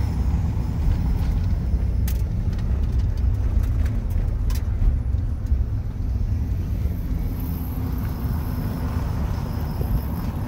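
Vehicle driving on a paved road, heard from inside the cabin: a steady low rumble of engine and road noise, with a couple of short clicks about two and four and a half seconds in.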